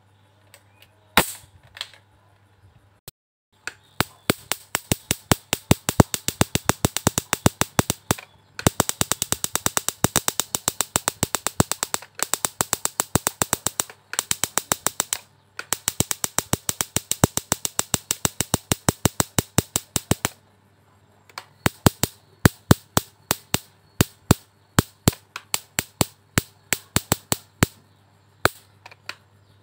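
Electric mosquito racket's high voltage arcing across a small gap at a CRT picture tube's socket pins: sharp snapping sparks, several a second, in long runs with brief pauses, after a few single snaps near the start. The zapping is meant to burn off a suspected short between the tube's G2 (screen grid) pin and ground, the cause of a dark picture with sound still working.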